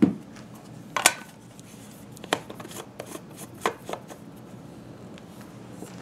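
A knock, then several sharp clicks and light scraping, a second or so apart, as the stainless steel cup lid is picked up and screwed onto the threads of a Thermos 24 oz food jar.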